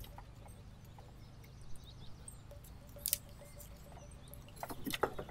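Dry willow sticks rustling and clicking as they are handled and bound into a bundle, with a sharp click about three seconds in and a few more close together near the end.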